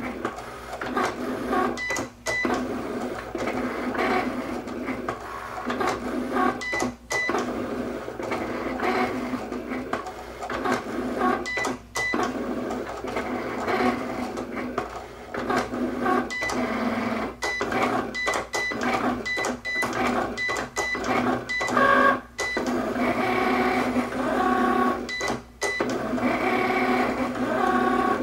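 Cricut cutting machine running: its motors whine in shifting pitches as the blade carriage and mat move back and forth, cutting thick gasket material with a deep-cut blade. The whine stops briefly every few seconds between moves.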